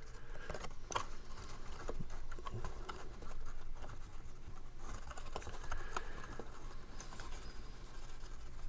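Cardstock pieces of a paper box card being handled and pressed into place: light rustling and scraping with scattered small taps, over a faint steady low hum.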